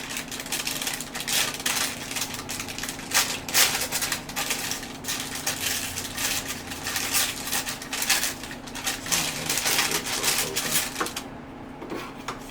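Plastic packaging crinkling and rustling in dense crackles as a cable is unpacked. It stops about eleven seconds in.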